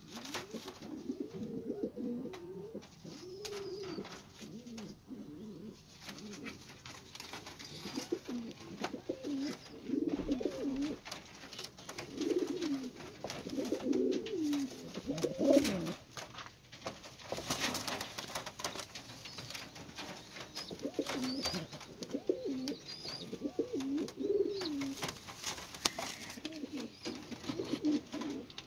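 Several pigeons cooing again and again in low coos that rise and fall, with a couple of brief rustles about two-thirds of the way through and near the end.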